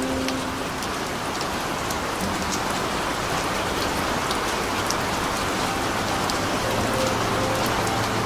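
Steady rain, a dense even patter with single drops ticking through it. Faint, muffled low music notes are held underneath it.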